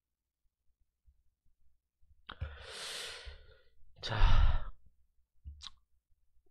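A man sighing and breathing out close to the microphone twice: first a long breathy sigh, then a shorter, louder exhale whose air thumps on the microphone. A brief faint click follows.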